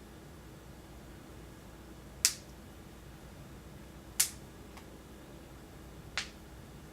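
Snap clips on clip-in hair extension wefts clicking shut, three sharp clicks about two seconds apart, the last one quieter.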